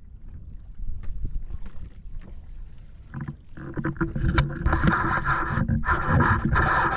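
Wind buffeting a pole-mounted action camera's microphone and water rushing past while wing foiling, rising about three seconds in to a loud buzzing rush.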